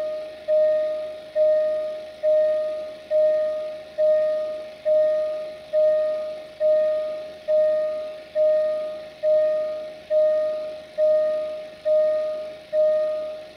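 Railway level-crossing warning bell ringing in a steady rhythm, a little faster than one strike a second. Each strike is a single clear tone that dies away before the next, warning of an approaching train.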